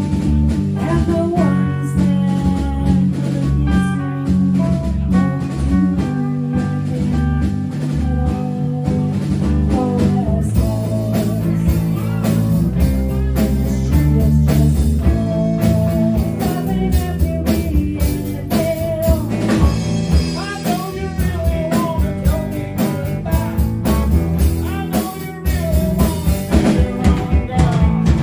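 Live band playing a number: electric guitars, bass guitar and a drum kit.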